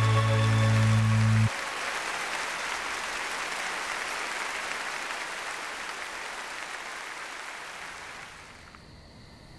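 A held music chord cuts off about a second and a half in, giving way to a large audience applauding. The applause slowly fades away toward the end.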